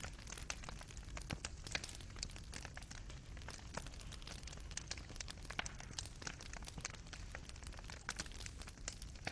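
Fireplace fire crackling, with irregular sharp pops and snaps from burning wood and coals over a low steady rumble of the flames.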